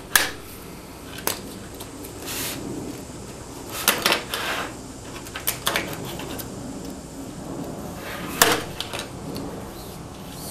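Scattered clicks and knocks of hard parts being handled as the rails of a pleated window shade are slid back into place, a few sharp ones spread irregularly, the loudest late on.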